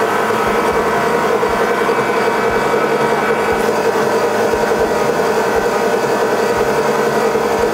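Metalmaster MML 250x550 bench metal lathe running steadily, its headstock drive giving a constant hum and whine.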